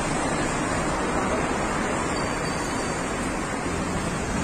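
Steady street noise, an even roar with no distinct events: traffic and crowd together, with some wind on the microphone.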